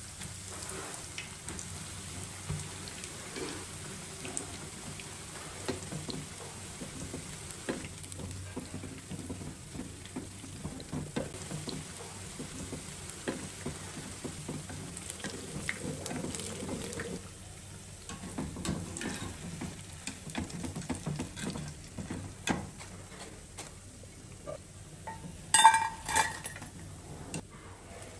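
Bread slices deep-frying in hot oil in a kadai: a steady sizzle and crackle, stirred with a wooden spatula. Near the end a few sharp metallic clinks ring out as a wire skimmer lifts the fried bread out.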